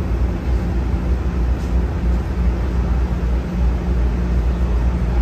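Steady, loud low rumble of a moving vehicle, with no breaks or distinct events.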